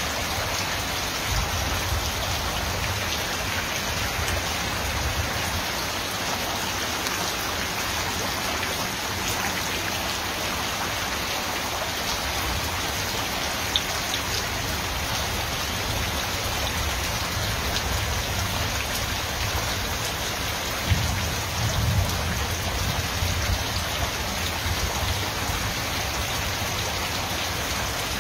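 Steady rain falling on the flooded ground, an even hiss that never lets up, with low rumbles now and then.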